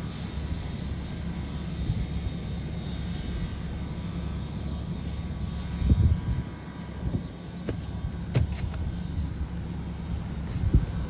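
WMSR 1309, a 2-6-6-2 Mallet steam locomotive, moving slowly: a steady low rumble, with a few heavy thumps and sharp metallic clicks in the second half.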